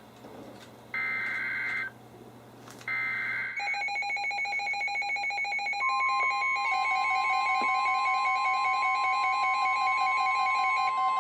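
NOAA Weather Radio SAME alert header: the last two of its three buzzy one-second data bursts, about a second apart, announcing a flood warning. Then several weather radios set off their alert alarms at once, a layered rhythmic beeping in several pitches, with a steady tone joining about six seconds in.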